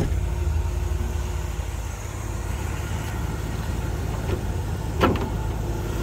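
350 V8 with dual exhaust idling steadily, a low even rumble. A sharp click comes right at the start and a short louder noise about five seconds in.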